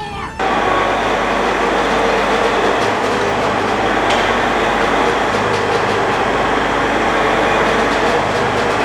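Caterpillar tracked tractor running and being driven, a loud steady engine rumble with mechanical clatter.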